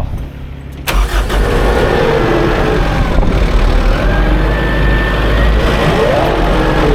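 Farm tractor engine running, cutting in suddenly about a second in, with a faint whine that drifts up and down in pitch over the steady engine noise.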